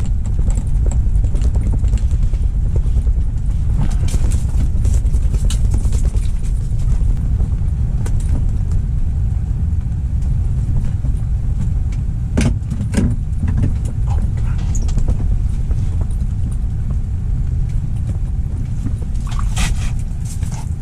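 Strong wind buffeting the microphone with a loud, steady low rumble. A few sharp knocks come about twelve seconds in and again near the end.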